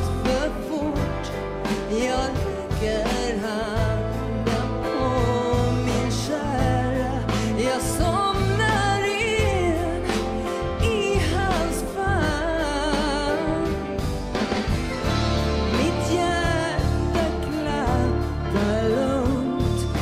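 A woman singing a pop ballad live into a handheld microphone, backed by a live band with a steady bass line and drums.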